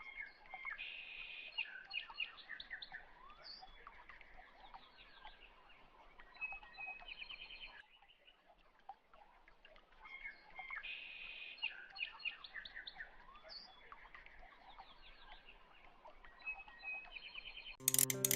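Faint birdsong of short chirps and trills, the same stretch of about eight seconds playing twice over.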